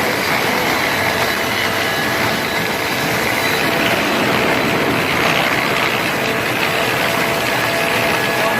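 Sawmill machinery running steadily: a constant rushing mechanical noise with a few faint steady tones over it.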